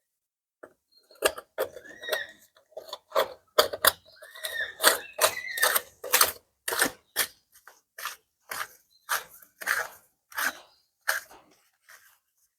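A run of sharp, irregular clicks and knocks, roughly two a second, with a few short squeaks in the first half.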